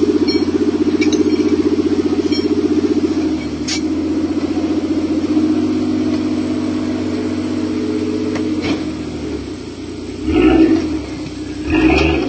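Engine of a modified off-road 4x4 competition vehicle running steadily, then revved twice near the end, each rev rising and falling in pitch.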